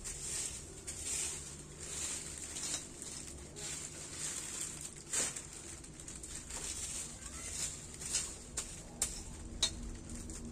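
Rustling and crackling of a thin plastic rubbish bag and dry leaves handled by hand as they are gathered into it, with a few sharper cracks in the second half.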